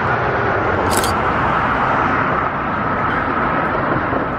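Car traffic passing on the bridge roadway: a steady rush of tyre noise, with a brief sharp hiss about a second in.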